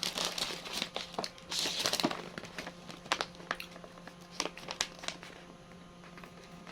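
Plastic snack bag of kangkong chips crinkling as it is handled and opened, loudest in the first two seconds, then scattered sharp crackles and clicks that fade toward the end.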